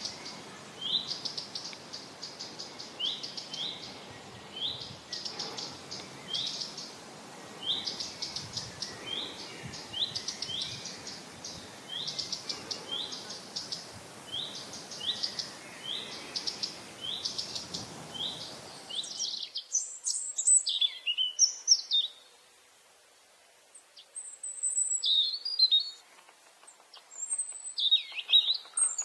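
Birds singing: short chirping phrases repeated about once a second over a steady background hiss. About 19 seconds in, the hiss stops abruptly and different, more varied calls with falling glides follow in a few bouts, with a short quiet gap between them.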